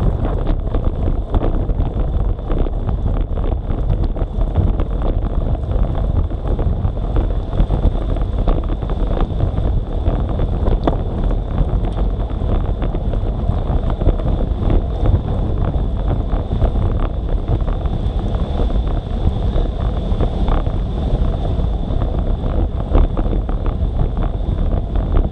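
Steady wind rumble on the microphone of an action camera riding on a road bike, mixed with tyre noise on wet tarmac.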